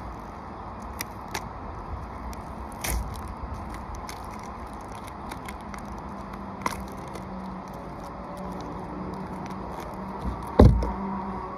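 Scattered clicks and crackles of peel-and-stick butyl flashing tape being handled and unrolled, over a steady background noise, with one loud thump about ten seconds in.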